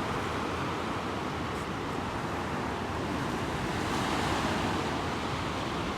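Sea surf washing onto the beach: a steady rushing that swells slightly about four seconds in, with some wind on the microphone.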